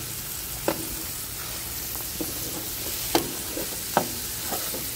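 Sliced zucchini, mushrooms and red onion sizzling on a metal sheet pan over a grill while a spatula stirs them. A steady hiss is broken by several sharp clicks and scrapes of the spatula against the pan.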